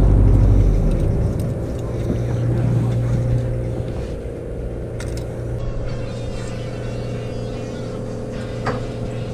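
A fishing boat's engine running steadily, a low, even drone.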